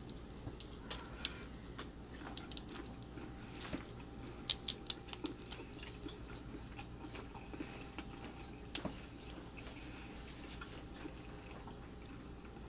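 Close-up eating sounds from a shrimp boil being chewed: soft chewing and mouth noises with scattered sharp clicks. There is a cluster of louder clicks about four and a half seconds in and one sharp click near nine seconds.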